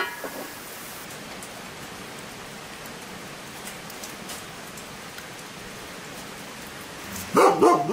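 Steady patter of rain, with faint scattered ticks. Near the end a dog barks twice in quick succession.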